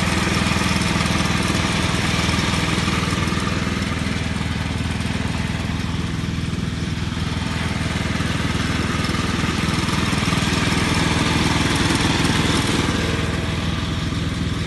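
Small engine of an H 130 self-propelled hazelnut harvester running steadily. It dips slightly in level about halfway through, then comes back up.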